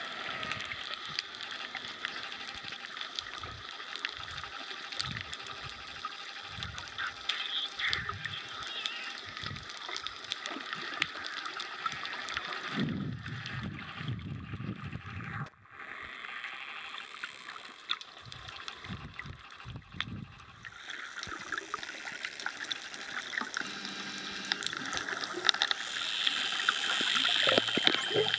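Underwater sound of a pod of wild dolphins: a dense crackle of clicks with a few short whistles, over gurgling water and low whooshes of water movement. The clicks and whistles grow louder near the end.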